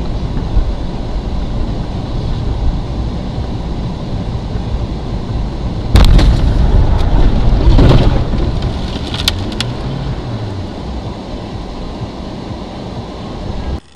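Dashcam car's road and engine noise inside the cabin. About six seconds in comes a sudden loud rushing thump of snow and slush hitting the car and windshield, lasting about two seconds, as the car runs into roadside snow. A few sharp knocks follow.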